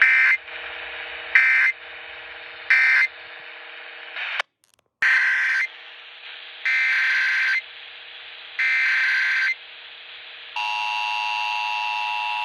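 Emergency Alert System SAME data tones: three short screechy bursts, the end-of-message code, then a brief dropout. Three longer header bursts for the next alert follow, and about ten seconds in the steady two-tone EAS attention signal begins and holds.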